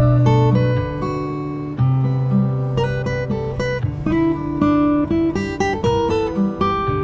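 Background music: plucked and strummed acoustic guitar playing a melody of short notes over a sustained bass line.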